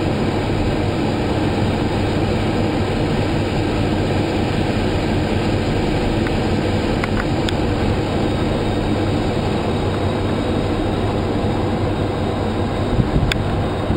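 Vehicle driving, heard from inside the cabin: a steady engine and road rumble.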